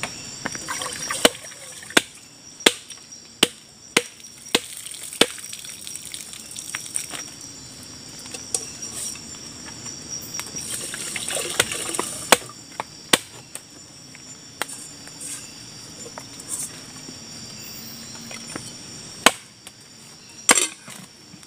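Water poured from a plastic jerrycan into a metal cooking pot, with a splashing pour about 11 seconds in. A run of sharp knocks, about one every two-thirds of a second, comes in the first few seconds, and a few more knocks come later. Night insects chirr steadily and high in the background.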